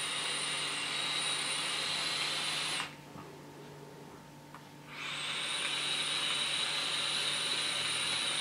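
Two long draws on an e-cigarette's rebuildable atomizer with a 0.33-ohm coil at 38 watts: a steady rush of air through the airflow with a thin high whistle on top. The first draw cuts off about three seconds in, and the second starts about five seconds in and runs to the end.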